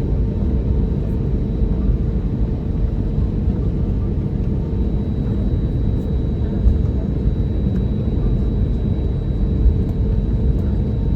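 Steady low rumble inside the cabin of an Airbus A320neo on the ground after landing, its engines at idle, with a faint steady whine above it.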